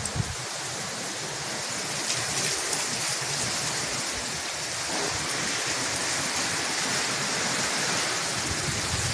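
Strong wind rushing through palm trees and buffeting the microphone: a steady rushing hiss that grows a little louder, with a few low thumps of wind on the mic at the start.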